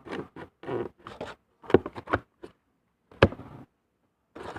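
A string of knocks and taps from containers and utensils being handled on a hard surface while slime ingredients are mixed, the sharpest about two and three seconds in.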